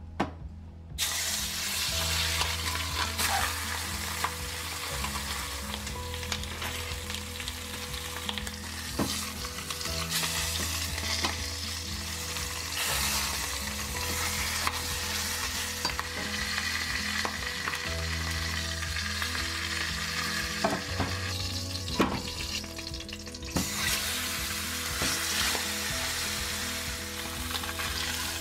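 Pork knuckles searing in hot oil in a stainless steel pot: steady sizzling that starts about a second in, with a few sharp metal clinks as the meat is turned with a fork.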